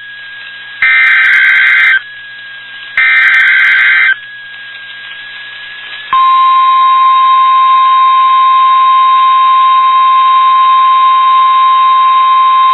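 NOAA Weather Radio test signal: two one-second bursts of SAME header data, a harsh digital warble, about a second apart. About two seconds after the second burst, the steady 1050 Hz warning alarm tone comes on and holds.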